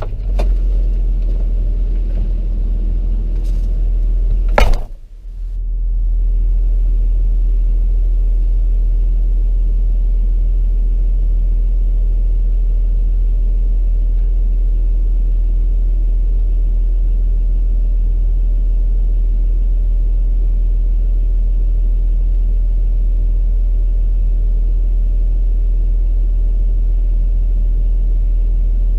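Excavator's diesel engine running steadily, a constant low rumble. About four and a half seconds in there is a sharp click and the sound briefly drops away before settling back to the same steady rumble.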